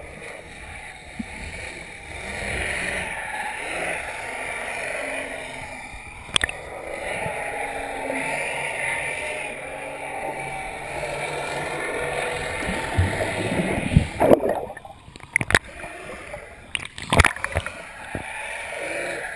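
Muffled rushing water heard underwater, steady throughout. A few sharp knocks or splashes come about two-thirds of the way in, where the microphone nears the surface.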